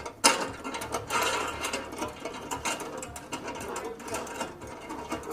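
Bolts on the nitrous bottle's mounting-bracket clamps being backed out, a run of rapid mechanical clicking and whirring as the long threads turn.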